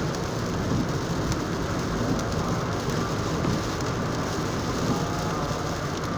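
Steady in-cabin road noise of a car driving on a wet highway in rain: tyres hissing on the wet road, with rain on the car and a low engine drone underneath.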